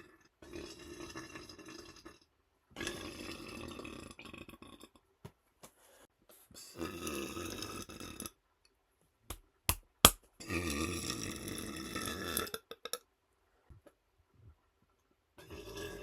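A man burping again and again: about five long, drawn-out burps with short silences between them, and a few sharp clicks near the middle.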